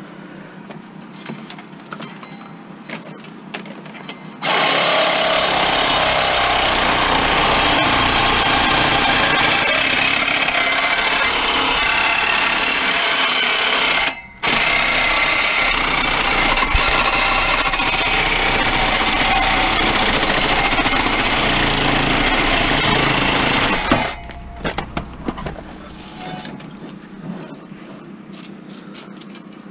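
Cordless reciprocating saw cutting through scrap metal, running loud from about four seconds in, stopping for a moment about halfway, then cutting again until a few seconds before the end. Light handling clatter comes before and after the cut.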